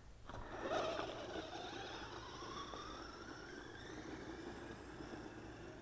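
Brushed electric motor of a 1/10-scale Volcano RC truck whining up in pitch as the truck accelerates away over gravel, the whine levelling off after about four seconds, with a rough, noisy rumble of the tyres on the stones underneath.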